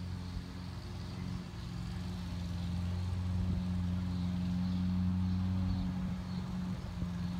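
A vehicle engine idling steadily with a low hum, getting a little louder about two seconds in.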